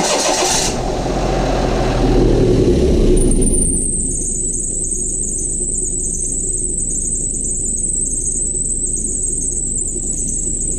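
Perodua Viva's small three-cylinder engine just started. It runs a little higher for the first few seconds, then settles to a steady idle. A thin, steady high whine sets in as it settles.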